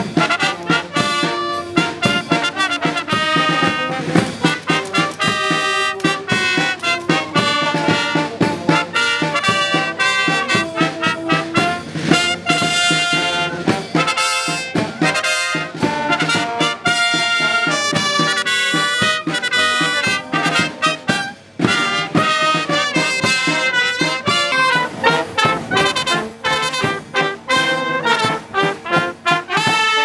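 Brass band music, with trumpets and trombones playing a continuous tune.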